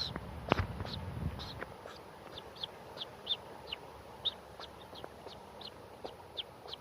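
A person imitating a chipping sparrow by mouth: short, high, downward-sliding whistled chips made with a K-like tongue stop, repeated irregularly about two or three times a second.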